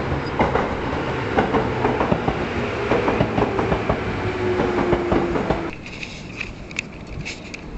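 Loud, steady rumbling noise full of rapid clattering clicks, with a steady tone in it for a couple of seconds, that drops away abruptly about six seconds in, leaving fainter scattered clicks.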